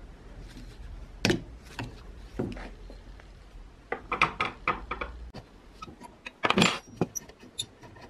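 Metal clicks, taps and knocks of an antique gasoline blowtorch being taken apart by hand with small tools, its burner and valve parts clinking. A quick cluster of clinks comes about four seconds in, and the loudest knock about six and a half seconds in, followed by a few light high pings.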